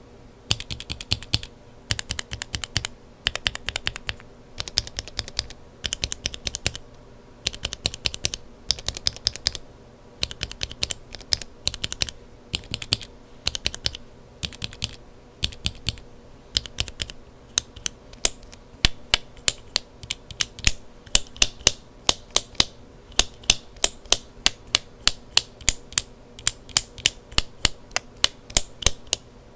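Mechanical keyboard switches with lubed Kailh Burgundy linear stems being typed on. Runs of quick keystrokes come first. From about the middle there is a steady series of louder single key presses, about two a second.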